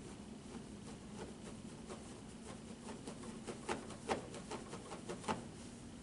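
Faint irregular clicks and taps from a padded treatment table and the body on it during rapid short-arc hamstring curls, coming closer together and louder between about three and five and a half seconds in, over a faint steady hum.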